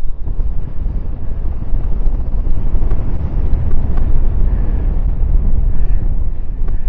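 Wind buffeting a paraglider pilot's microphone in flight, a steady loud low rumble of rushing air.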